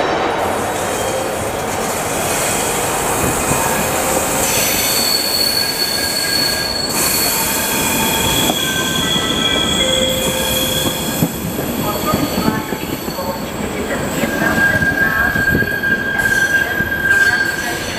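Passenger coaches of a departing train hauled by a ČD Class 242 electric locomotive rolling past, their wheels squealing on the curved station track in high, steady tones that come and go, changing pitch several times.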